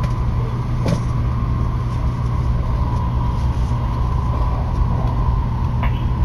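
Steady running noise inside a Tokaido Shinkansen car: a low rumble with a steady higher tone over it. Two light clicks, about a second in and near the end.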